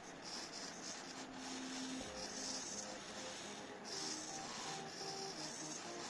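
Standard-size hobby servo motors whirring through their gears in short bursts as the joystick swings them back and forth, with faint background music.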